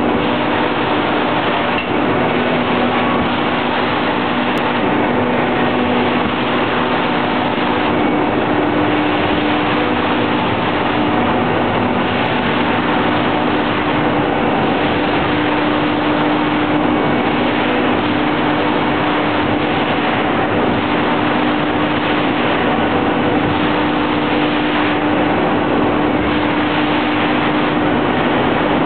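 Angelo Cremona rotary veneer peeling lathe running steadily, turning a log against its knife and peeling it into a continuous veneer sheet: a loud, even mechanical noise with a steady hum running through it.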